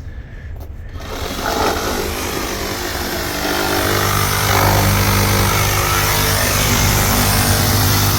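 A power saw starts about a second in and runs steadily, cutting into the shed's wooden framing; it grows louder a few seconds later as it bites in.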